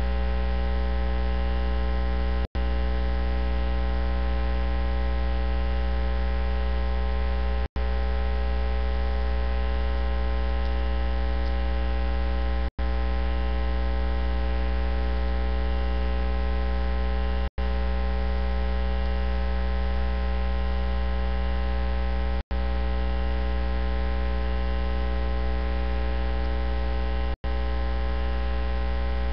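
Loud, steady electrical mains hum with a buzzy stack of overtones, cutting out for an instant about every five seconds. No voice comes through it.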